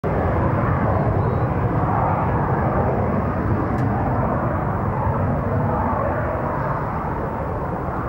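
Military helicopter running overhead: a steady, loud rumble of rotor and turbine noise that eases slightly over the last few seconds.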